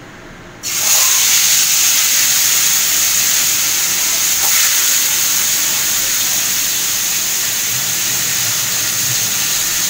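Fish pieces going into hot oil in a frying pan: a loud sizzle starts suddenly about a second in and keeps on steadily.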